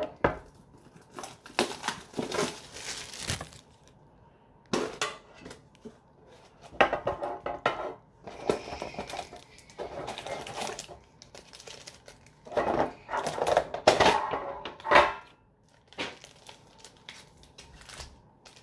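Plastic shrink-wrap crinkling and tearing as it is peeled off a metal trading-card tin, in irregular bursts with quieter gaps between.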